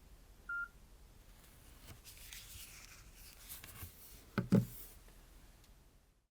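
A Nokia C2-01 mobile phone gives a single short electronic beep about half a second in. Faint rustling follows, then two sharp knocks in quick succession about four and a half seconds in, the loudest sound.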